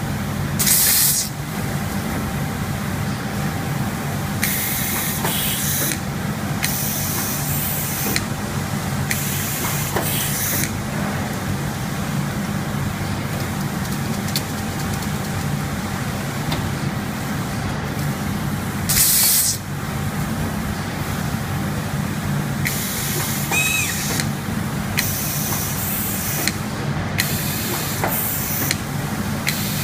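A die-cutting machine running with a steady low hum, broken at irregular intervals by short bursts of air hissing.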